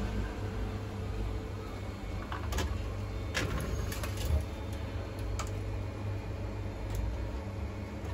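A steady low background hum, with a few light clicks and taps as a wire is handled and pressed into place inside an arcade machine's cabinet.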